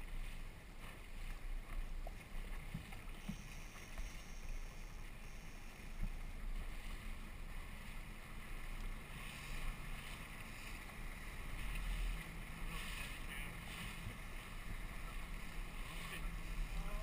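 Outboard motor on a rigid inflatable boat running underway, with wind buffeting the microphone and water rushing past the hull; the rush of water grows louder in the second half.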